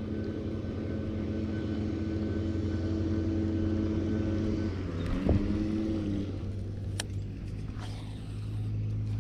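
A motor running steadily, a pitched hum whose tone shifts and settles lower about five seconds in, with a sharp click a couple of seconds later.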